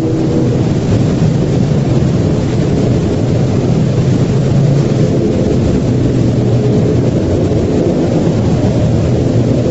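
A loud, low rumble with a steady droning hum through it, cutting in suddenly out of total silence and holding steady.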